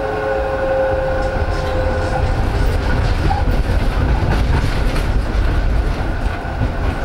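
Inside an Esslingen GT4 articulated tram running on metre-gauge track: a steady low rumble of the wheels on the rails, light clicking over the rail joints, and a steady whine that fades after about two seconds and comes back near the end.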